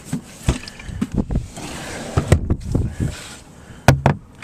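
Knocks, bumps and clicks of fittings being moved around inside a campervan, with a rush of noise in the middle and two loud knocks close together near the end.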